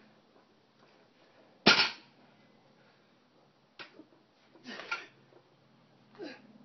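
A plate-loaded barbell dropped onto pavement: one loud crash about a second and a half in. A few lighter clanks and knocks of the bar and plates follow in the middle as it is handled and lifted again.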